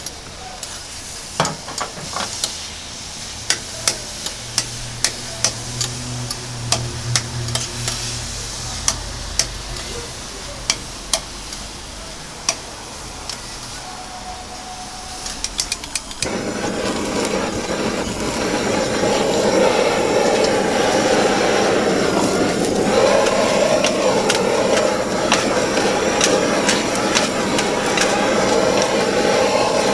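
Beef cubes sizzling on a hot flat-top griddle, with metal spatula strikes and scrapes clicking on the steel plate. About halfway through, a much louder steady hiss sets in.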